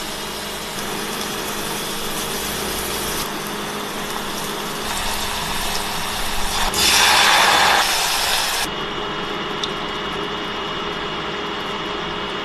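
Butter and ingredients sizzling in a steel saucepan on an induction cooktop over a steady hum, with a louder hissing sizzle about seven seconds in that lasts about two seconds and stops suddenly.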